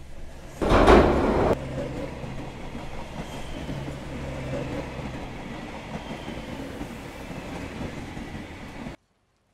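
Subway train running: a loud burst of noise about half a second in as the car lurches, then a steady rumble of the moving train that cuts off abruptly near the end.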